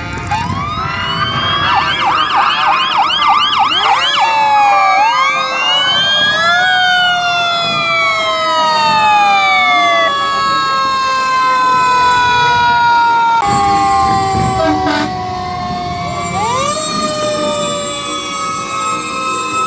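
Several emergency-vehicle sirens on passing fire apparatus sounding at once. A fast yelp runs for about three seconds, then gives way to overlapping wails that rise and slowly fall.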